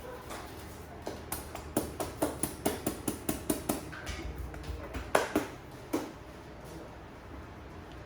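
Rapid, rhythmic percussive hand strikes of a head massage, about four a second for some three seconds, then three louder, sparser strikes.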